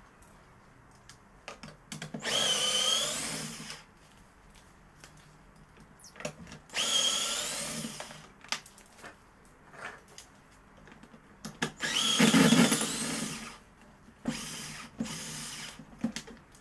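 Power drill-driver backing screws out of a washing machine, in three runs of one to two seconds and a shorter pair near the end. Its motor whine bends in pitch within each run. Small clicks of handling come between the runs.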